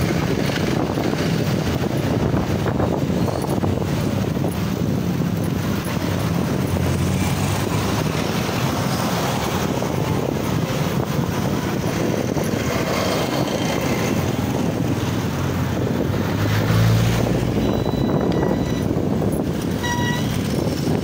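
Street traffic heard from a moving bicycle: motorcycle and car engines running close by over a steady rush of wind on the microphone, with a louder low rumble as a vehicle passes near the end.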